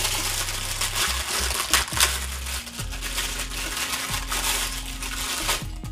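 Thin plastic bag crinkling and rustling in the hands as a metal desk clamp is unwrapped from it, with a few sharper crackles about two seconds in.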